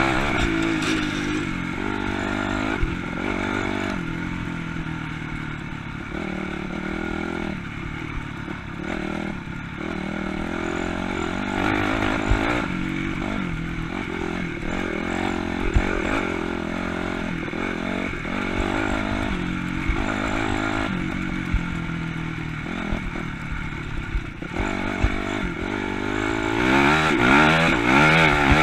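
Honda CRF250 dirt bike's single-cylinder four-stroke engine under way off-road, the revs rising and falling over and over as the throttle is worked, with occasional knocks and clatter. It is loudest near the end, revving up.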